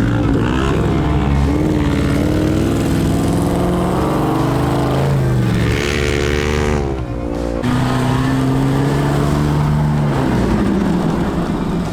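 Off-road vehicle engine revving under load, its pitch rising and falling, climbing sharply and cutting out briefly about seven seconds in before pulling steadily again.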